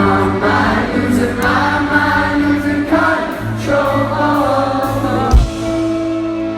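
Live rock band playing with sung vocals over sustained bass and keyboard notes. A single loud thump comes a little over five seconds in.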